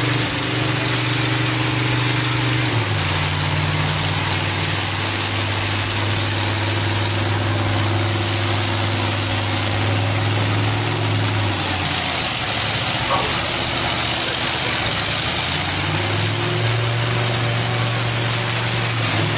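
Diesel engine of a John Deere tractor running hard under load in a tractor pull, a steady low drone that shifts pitch a few times, fades about two-thirds of the way through and comes back near the end, with a constant hiss over it.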